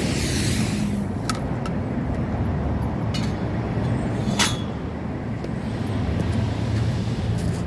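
High-pressure rinse spray from a self-serve car wash wand hissing against a minivan's body, cutting off about a second in. A steady low machine rumble carries on under it, with a few sharp clicks.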